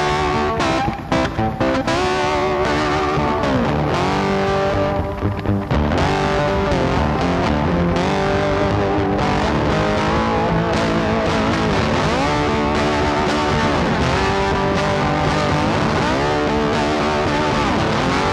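Background music led by electric guitar, its notes bending and sliding in pitch.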